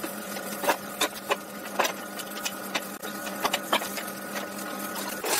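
Small electric motor running with a steady hum, overlaid by irregular sharp clicks and taps; the hum cuts off near the end.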